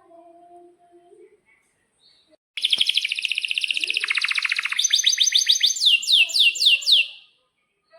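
Domestic canary singing a rolling trill: a loud run of very fast, even notes begins about two and a half seconds in, then changes to a slower series of downward-sweeping notes before stopping shortly before the end.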